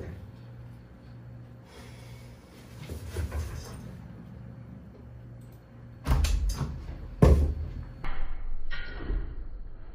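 Faint low rustling, then a few heavy, dull thumps and knocks about six and seven seconds in, followed by more handling noise.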